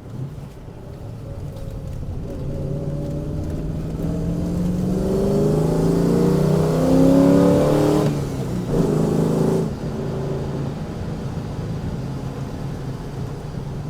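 Rover SD1 Vitesse's V8 pulling away under acceleration, its revs and loudness climbing for several seconds, then dropping sharply about eight seconds in before picking up again and settling. The engine has a new misfire and is down on power; the owner wonders whether a sticky valve is to blame.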